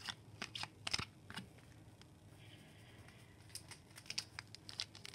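Faint clicks and light taps of a stack of hockey trading cards being flicked through by hand and set down on a wooden tabletop, in two short clusters with a quieter stretch between.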